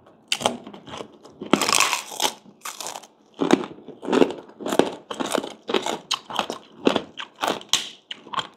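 Crunchy chewing of chicharon, crispy fried pork rinds: a steady run of crisp crunches, about two a second.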